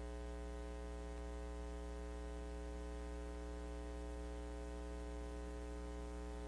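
Steady electrical mains hum on a broadcast audio line: a low, unchanging buzz with many fixed overtones and a faint hiss.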